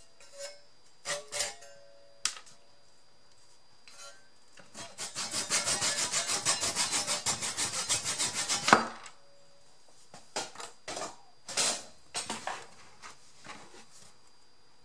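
A small piece of wood being sawn by hand: quick back-and-forth strokes, about five a second for some four seconds, ending in a sharp snap as the piece comes free. Light clicks and taps of handling come before and after.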